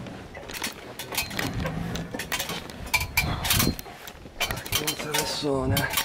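Clinking of a backpack's metal zip pulls and knocking of gear as someone climbs a wooden ladder, with a short wavering pitched sound near the end.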